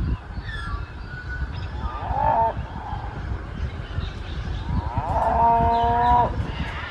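Two animal calls over a steady low rumble: a short call about two seconds in, then a longer, steady call near the end.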